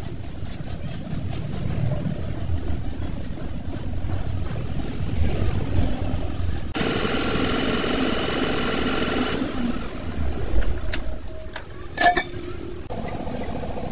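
Low engine rumble from vehicles running nearby, with a steady tone-laden noise for about two and a half seconds midway, and one sharp metallic clank about twelve seconds in as the greased truck wheel hub is lifted off the steel tray.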